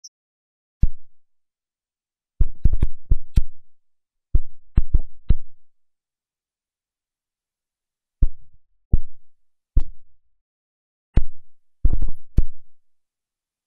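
A series of dull, low thumps in irregular clusters, some of them doubled or tripled in quick succession, with dead silence between them.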